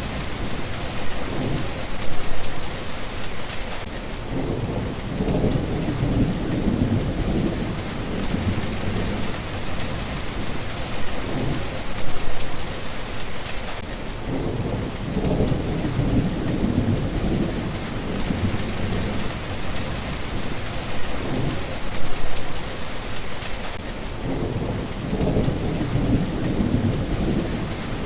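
Steady rain falling as an even hiss, with a low rumble swelling and fading about every ten seconds in a repeating pattern.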